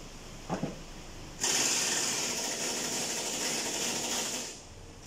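A power tool starts suddenly about a second and a half in and runs with a rattling, hissing sound for about three seconds, then fades. Just before it there is a short rising squeak.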